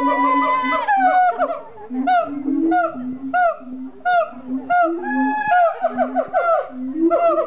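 Siamangs calling in their loud duet song. Short deep notes come about twice a second, each with a swooping higher note above it, and long wavering high calls overlap near the start and again around five seconds in.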